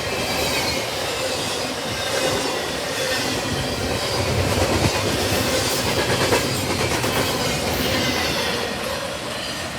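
Double-stack intermodal freight cars rolling past at speed: a steady rumble and rattle of wheels on rail with clicking over the joints and a thin high wheel squeal. It begins to fade near the end as the train moves away.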